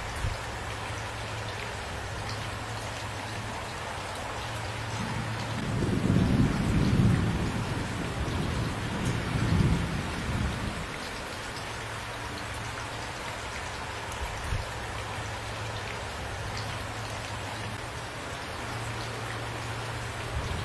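Steady rain falling, with a roll of thunder about five seconds in: a low rumble that swells twice and dies away about six seconds later.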